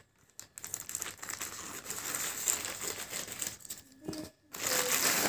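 Plastic courier mailer bag crinkling and rustling as it is cut and pulled open, with a louder rustle near the end.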